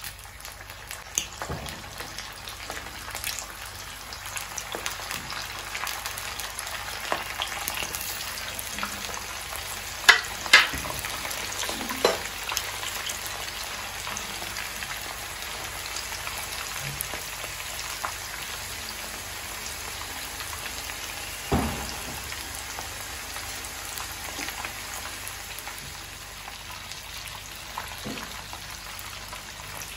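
Prawn spring rolls deep-frying in hot oil over medium heat: a steady sizzling crackle, with a few sharper knocks standing out about ten seconds in and again past twenty seconds.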